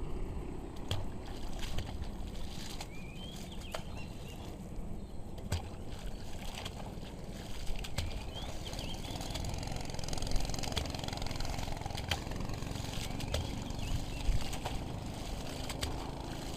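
Steady low outdoor rumble with scattered small knocks and clicks.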